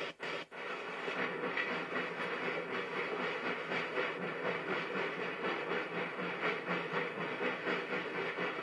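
NSW 50 class steam locomotive 5069 running with its train, a steady rhythmic beat of about three a second over a hiss of steam. The sound cuts out twice very briefly just after the start.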